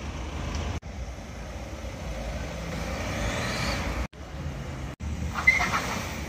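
Cars driving past on a road, with engine and tyre noise, in several short cuts. One engine revs up, its note rising in the middle, and a short high-pitched sound comes near the end.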